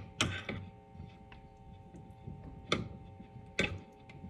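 Metal spoon clinking and scraping against a glass bowl while stirring melted chocolate and oil, in irregular light ticks with two sharper clinks in the second half.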